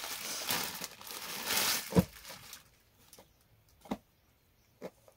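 Rustling of a folded suit being handled and laid out on a cloth sheet, with a sharp tap about two seconds in. It then goes quiet apart from two short soft knocks near the end.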